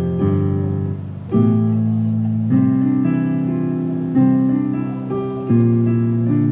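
Electronic keyboard played in chords, a new chord struck about every one to one and a half seconds, with the notes held between.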